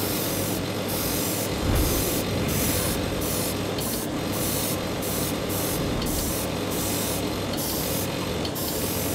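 SB88 spray booth extractor fan running steadily with a low hum, while an Iwata HP-CH airbrush hisses in short bursts, its trigger opened and closed about every half second to second.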